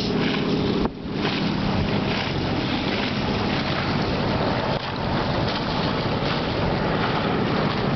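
Wind buffeting the microphone and water rushing past the hull of a sailboat under way, a steady loud rush with a faint low hum beneath. It dips suddenly and briefly about a second in and again near the middle.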